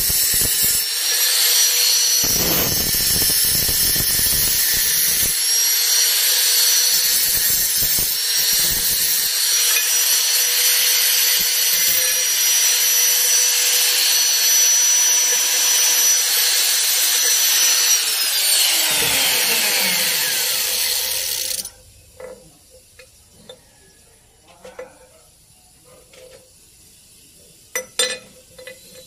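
Electric angle grinder running under load, grinding a small metal part: a steady high motor whine over harsh grinding noise. About 18 seconds in the trigger is let go and the whine falls in pitch as the disc spins down, dying away about 3 seconds later. Faint handling clicks follow, and a sharp knock near the end.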